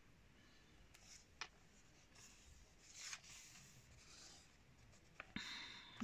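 Faint rustling of glossy magazine paper as the pages are handled and turned, with a small click about one and a half seconds in and a stronger rustle near the end.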